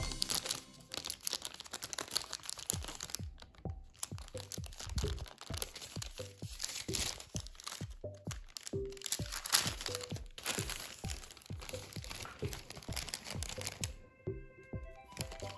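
A sheet of origami paper crinkling and crackling in short sharp bursts as it is folded and creased by hand, over background music.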